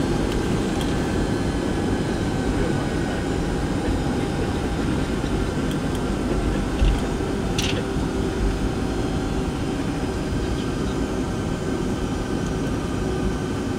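Cabin noise of a Boeing 757-200 taxiing: a steady low rumble from its Pratt & Whitney PW2000 turbofans at low power and the rolling gear, with a steady hum over it. There is one bump about halfway through, then a sharp click.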